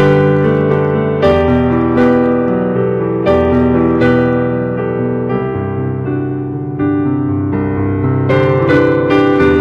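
Piano music: chords struck roughly once a second, each left to ring until the next.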